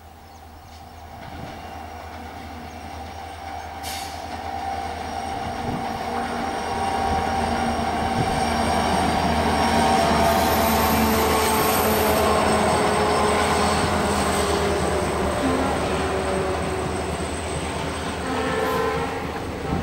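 A passenger train hauled by an EMD WDP4D diesel locomotive running past, with the coaches' wheels rolling on the rails and squealing. It grows louder over the first half, then eases off slightly.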